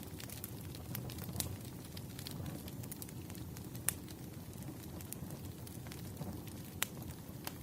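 Campfire burning: a steady low rush of flames with sharp crackles and pops scattered through it, the loudest about four and seven seconds in.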